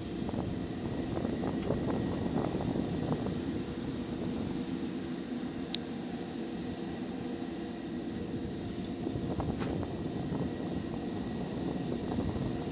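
Jet engine running steadily on an airfield flight line: a dense, even drone with a faint high whine over it. Light clicks and knocks come and go, with one sharp click about six seconds in.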